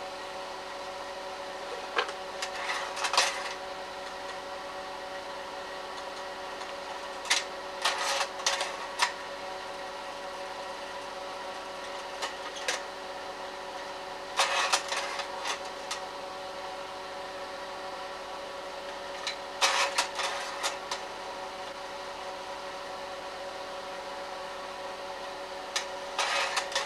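Slide projector running with a steady fan and motor hum, its mechanism clicking and clattering through a slide change five times, roughly every five to six seconds.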